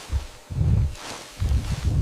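Low, heavy thuds in a steady rhythm of about one a second, with a rustling hiss between them.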